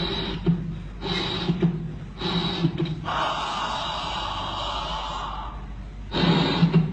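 Recorded heart sounds with a murmur: low beats about once a second, each carrying a whooshing hiss, and a longer unbroken whoosh lasting about two and a half seconds in the middle. This is the murmur of a tricuspid valve lesion.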